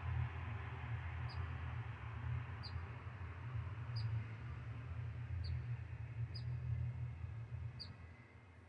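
A small bird repeating a single short, high chirp about every second and a half, over the steady hiss of ocean surf and a low rumble.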